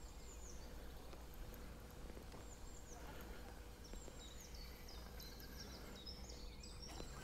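Faint outdoor ambience: a steady low wind rumble, with a small bird singing short, high, falling chirps, more often from about three seconds in.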